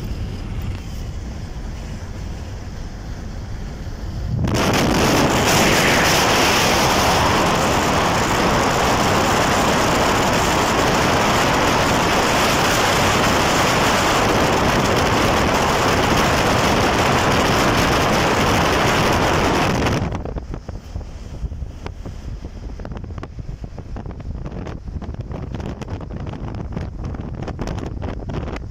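Road rumble inside a moving car. About four seconds in, a loud rush of wind through the open window drowns it out for about sixteen seconds, then cuts off suddenly, leaving a lower rumble with gusts of wind buffeting the microphone.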